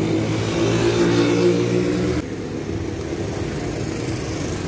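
A motor vehicle's engine running close by with a steady hum, its level dropping suddenly a little over two seconds in.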